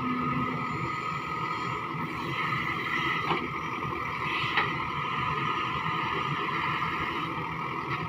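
JCB 3DX backhoe loader's diesel engine running steadily with a steady high whine while the backhoe arm digs and swings. Two short knocks come about three and four and a half seconds in.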